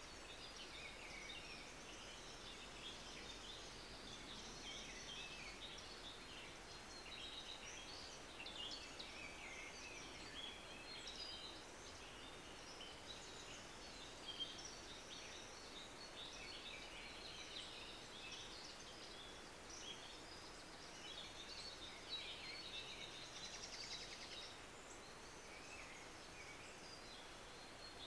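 Faint birdsong: many small birds chirping at once in a dense, overlapping chorus that goes on without a break.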